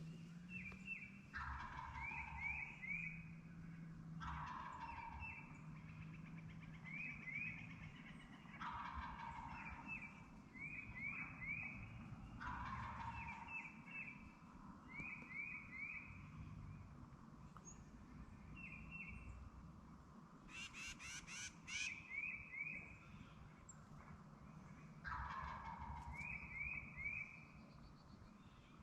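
Wild turkey gobbler gobbling hard, about five loud gobbles spaced a few seconds apart. Between gobbles a small bird repeats quick chirping phrases, and a short burst of sharp clicks comes about two-thirds of the way through.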